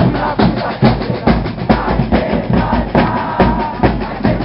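Bass drums and snare drums of a football supporters' drum band pounding an even beat, about two strokes a second, with a crowd singing along.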